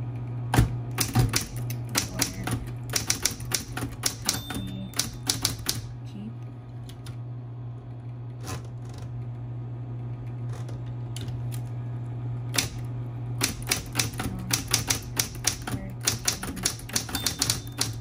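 SCM Smith-Corona Coronet Electric 12 electric typewriter being typed on: quick runs of sharp key and typebar strikes over the steady hum of its running motor. The typing thins to a few strikes in the middle, then picks up again in fast runs.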